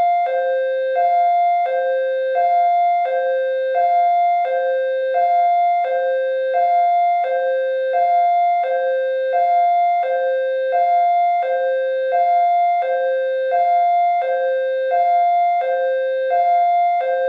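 Police car siren sounding a steady two-tone hi-lo wail, alternating between a higher and a lower pitch about every 0.7 seconds without a break.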